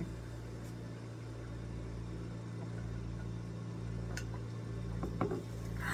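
Steady low hum, with a few faint clicks and a short soft sound near the end.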